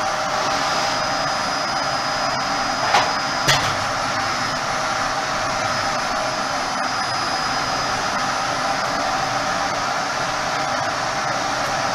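Canister vacuum cleaner running steadily while vacuuming a concrete floor, with a faint high whine over its rushing noise. Two sharp knocks half a second apart about three seconds in.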